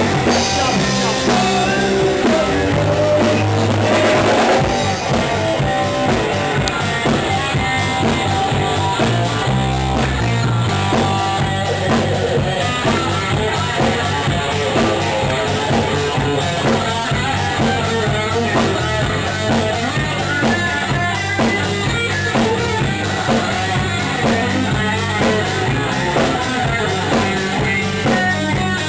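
Rock band playing live at full volume: electric guitars, electric bass and a drum kit with steady cymbal strokes.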